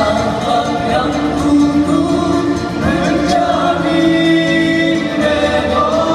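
Male nasyid vocal group singing in harmony through microphones, several voices holding and sliding between notes together.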